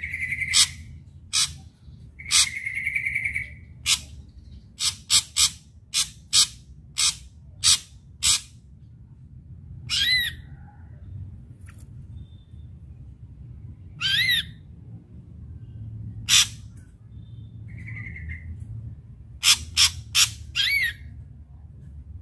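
Ashy drongo singing: a run of sharp, clicking notes, harsh buzzy calls, and a few whistled notes that sweep up and then down in pitch.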